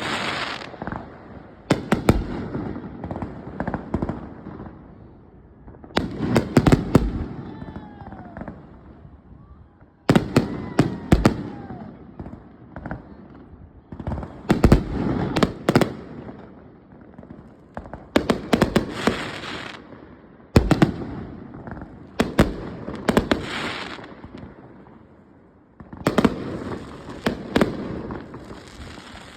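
Fireworks display: clusters of sharp aerial shell bursts every few seconds, each followed by a crackling tail that dies away.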